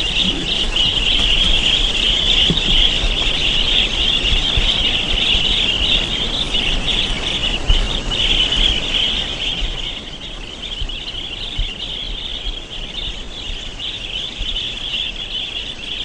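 Dense, steady chorus of high-pitched chirping calls over a low rumble like wind on the microphone, a little quieter after about ten seconds.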